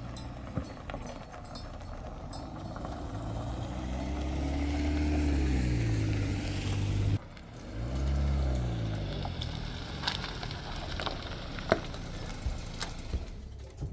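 Motor vehicle engine running, its pitch rising and falling twice, with a sudden cut about seven seconds in. Scattered sharp clicks and knocks follow near the end.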